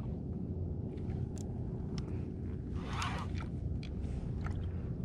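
Steady wind rumble and water noise around a plastic fishing kayak, with scattered small clicks and a short splash about three seconds in.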